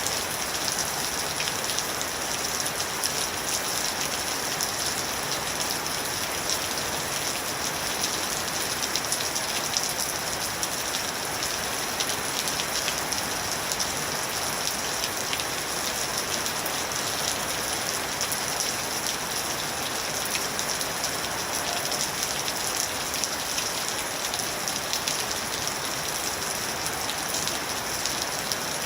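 Steady rain falling, an even hiss with many fine drops pattering on a surface.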